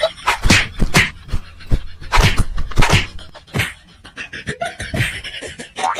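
A dog making a string of short, irregular sounds, with several loud bursts.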